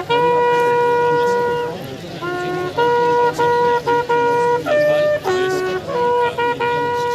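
Bugle sounding a ceremonial salute call for the fallen: a long held note of nearly two seconds, then a run of shorter notes stepping between a few pitches.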